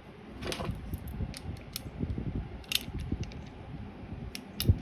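Metal clicking and scraping as a second nut is run onto a quarter-20 bolt and tightened against the first, to lock it from coming loose. Irregular small clicks, with a sharper knock near the end.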